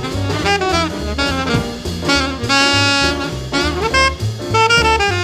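Background jazz music: a saxophone playing a melody over bass and drums, with a long held note about halfway through.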